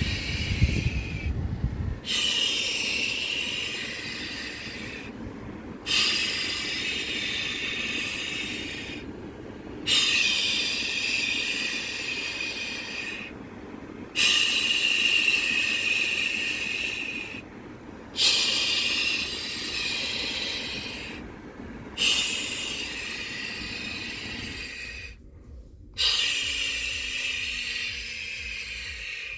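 A Samsung Galaxy Z Fold 3 phone giving off a strange hissing noise in repeated bursts about every four seconds. Each burst starts suddenly, fades, and breaks off briefly before the next. The owner can't tell what is causing it.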